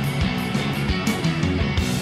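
Rock music played by a full band, guitar over a steady drum beat.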